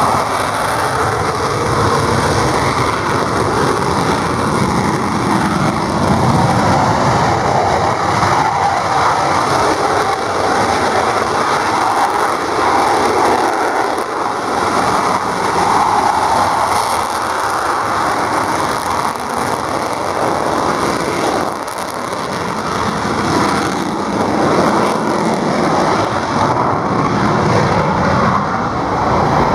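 Dassault Mirage F1CR jets' single SNECMA Atar turbojets running loudly and steadily on the runway during departure, one at high power for its takeoff run near the end.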